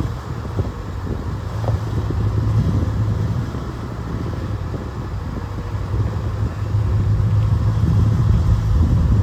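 A piece of equipment's engine running steadily at a low, even pitch. It gets a little louder towards the end.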